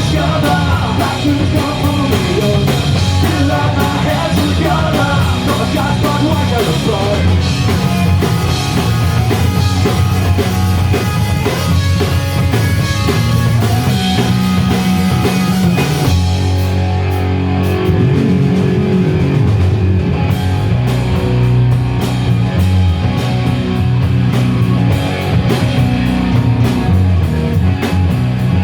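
Live punk rock band playing loud, with distorted electric guitars, bass and a drum kit. About sixteen seconds in the bright cymbal wash drops away and the guitars and bass carry on.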